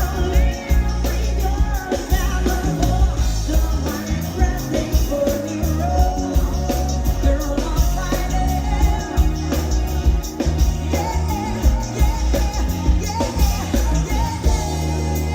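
Live neo-soul band playing: a woman singing over drums, bass and keyboards.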